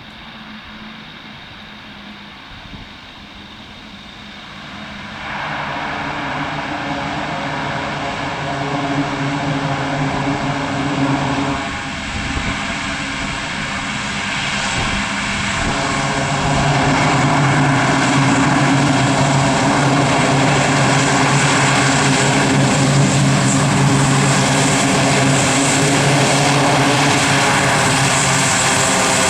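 Lockheed C-130T Hercules's four turboprop engines with their steady propeller drone, growing louder about five seconds in and again about sixteen seconds in, then holding loud and steady.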